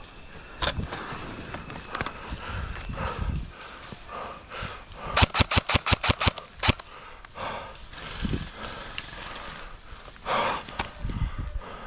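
Airsoft gun firing a full-auto burst of about a dozen rapid shots lasting about a second and a half, midway through, with a few scattered single shots before and after.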